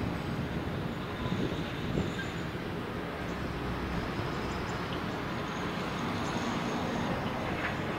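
Steady low rumble of a small coastal cargo ship's diesel engine running as the ship moves slowly ahead, with a few faint high squeaks over it.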